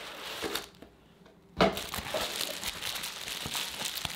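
Plastic bubble wrap crinkling and crackling as it is handled. The sound drops almost to nothing for a moment about a second in, then returns with a sharp thump followed by steady crinkling.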